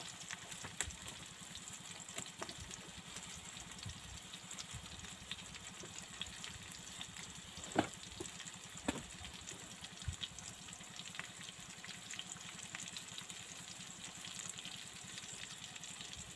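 Chopped tomato and spices sizzling and crackling in oil in a wok on a portable gas stove. Two sharper clicks come about a second apart midway through.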